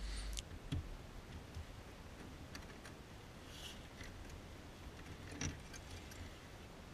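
Faint, sparse clicks and a brief scrape of hands handling the stock halogen H7 headlight bulb as it is twisted and pulled out of the plastic headlight housing, with a sharper click about five and a half seconds in.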